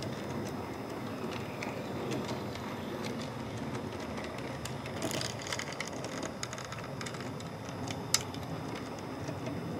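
Large-scale garden model train rolling along its track, heard from aboard a loaded coal hopper car: a steady rolling rumble with scattered clicks, the sharpest about eight seconds in.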